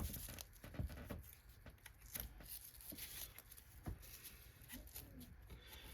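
Faint, scattered scrapes and clicks of hands working hair off the bristles of a vacuum cleaner's agitator brush roll.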